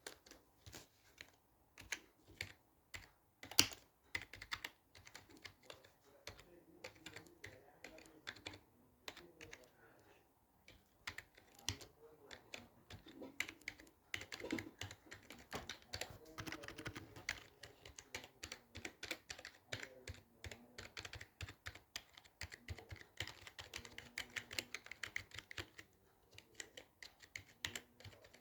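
Typing on a computer keyboard: quick, irregular key clicks that thin out briefly about a third of the way through, with one louder key strike early on.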